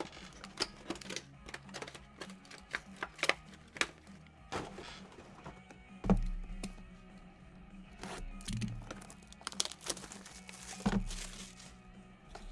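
Shrink-wrapped trading card boxes being handled on a tabletop: crinkling and tearing of plastic wrap with frequent sharp clicks and taps of cardboard, over background music.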